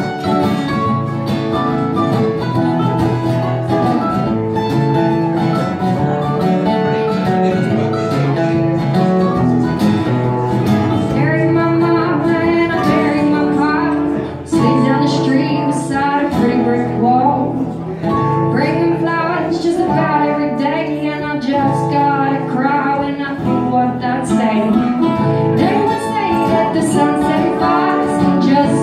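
Live acoustic folk/country band: two acoustic guitars strumming with a mandolin. An instrumental passage runs first, then a woman's lead vocal comes in about eleven seconds in and carries on over the playing.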